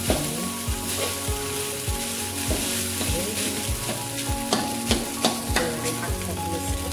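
Metal spatula scraping and tossing fried rice around a steel wok, knocking against the pan about twice a second, over a steady sizzle of the rice frying dry.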